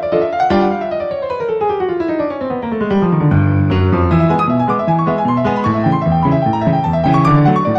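Background piano music. About half a second in, a line slides downward for some three seconds, then lower repeated notes carry on.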